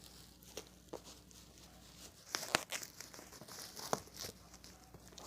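Parcel packaging being crinkled and torn open, with scattered sharp snaps; the loudest crackles come a little past two seconds in and again near four seconds.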